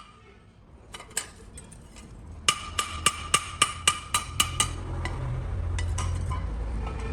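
Hand hammer striking steel on an anvil with a ringing clang: a couple of light taps, then a steady run of about eight blows at three to four a second. A low rumble builds under the last blows.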